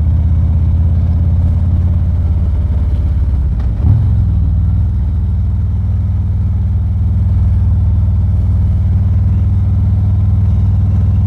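Harley-Davidson Ultra Limited's V-twin engine running steadily on the move, heard from inside the rider's helmet, with a brief loud bump and a change in the engine note about four seconds in.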